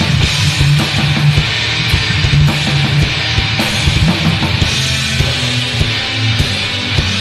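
Black metal recording: a dense, steady wall of distorted electric guitars over drums with many quick low drum hits.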